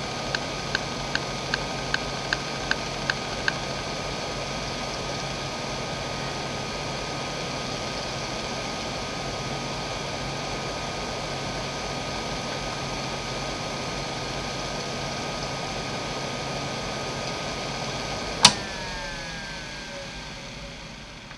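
JVC JDE2042M10-1 40MB 2.5-inch hard drive from 1992. Its heads tick about two and a half times a second during a linear read test, stopping about three and a half seconds in. After that the drive idles with a steady whir and high whine. Near the end comes a single sharp click, the loudest sound, and the whine slides down in pitch as the 3400 rpm spindle spins down.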